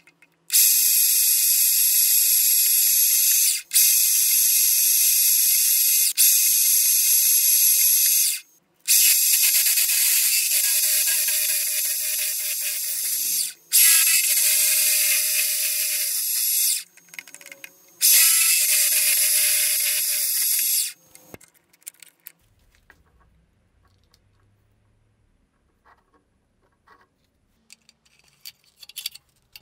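Drill press boring a hole into a metal round bar, a loud steady cutting hiss with a steady whine in some stretches, in several runs broken by short gaps. It stops about 21 seconds in, leaving only a few faint clicks.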